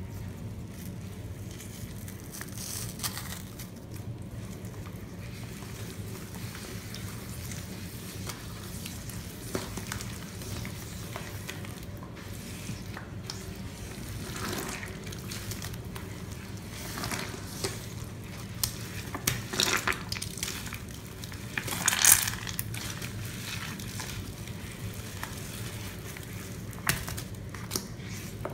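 Rubber-gloved hands squeezing and kneading cut-up sponge pieces in a thick wet paste of Comet cleanser and Pine-Sol: irregular squishing and crackling, with a run of louder squelches about two thirds of the way through, the loudest near the end of that run. A steady low hum runs underneath.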